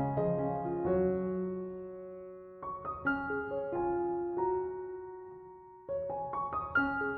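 Background music: slow, gentle solo piano, clusters of notes struck together and left to ring out and fade, with a pause of a couple of seconds between phrases.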